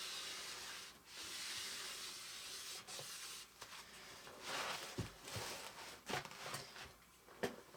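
Hand scrubbing of corrosion off a painted steel bicycle rim, long rubbing strokes at first and shorter ones later, with a few short knocks in the second half.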